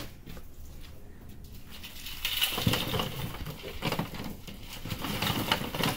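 Boiled crawfish spilling out of a tipped stainless-steel perforated basket onto a paper-covered table: a clatter of many small impacts that starts about two seconds in.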